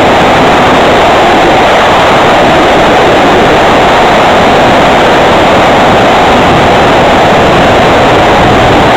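Home-made RC plane in flight, heard from a camera on its wing: a loud, steady rush of wind and propeller noise with a constant drone.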